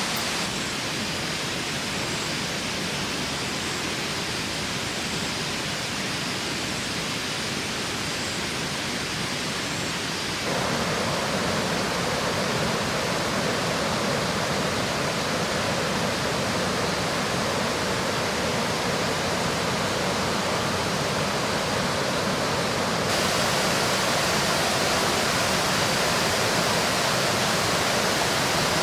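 Steady rush of water, a continuous even noise that steps abruptly louder about ten seconds in and again near the end.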